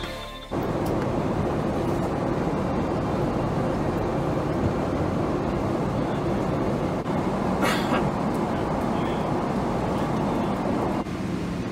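Steady cabin noise of a Boeing 777-300ER airliner in flight: the even rush of air and engines heard from a seat in the cabin. A brief hiss comes a little before eight seconds in, and background music cuts off just at the start.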